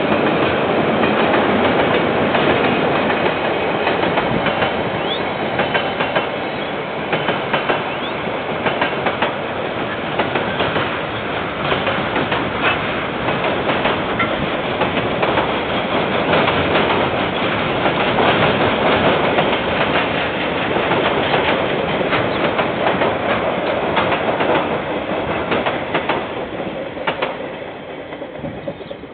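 KiwiRail freight train's wagons rolling past: a steady rumble with wheels clicking over the rail joints. It fades over the last few seconds as the end of the train goes by.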